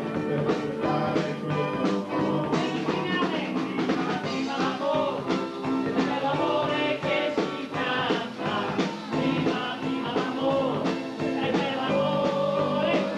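An Italian beat vocal group sings live over a rock-and-roll band, several men's voices singing together into microphones over a steady drum beat.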